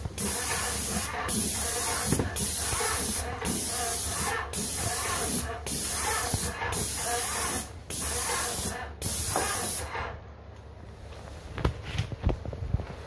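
Paint spray gun hissing in about nine bursts of roughly a second each, one for each trigger pull and pass across the radiator, with short breaks between them; the spraying stops about ten seconds in, followed by a few light knocks.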